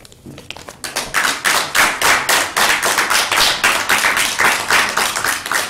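An audience applauding: the clapping starts about half a second in, is in full swing within the first second, and keeps up as a dense patter of claps.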